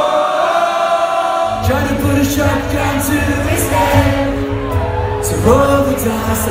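Live rock band: a long sung note, then about one and a half seconds in the drums, bass and electric guitar come in together with cymbal crashes, and singing carries on over the band.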